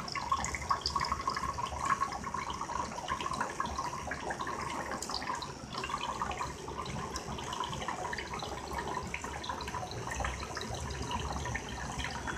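Homemade DC-motor mini water pump running, its thin jet of water splashing steadily into a bowl of water like a running tap, with a faint steady whine from the small motor.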